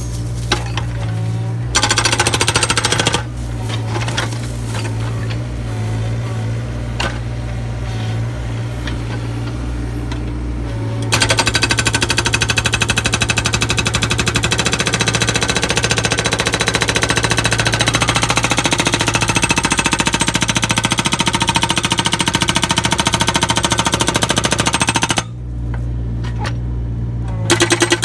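Excavator-mounted SB 20 hydraulic breaker hammering rock in rapid blows over the steady low hum of the carrier machine. There is a short burst of hammering about two seconds in and scattered single strikes. Then a long continuous run of blows starts a little before halfway, stops a few seconds before the end, and starts again briefly at the very end.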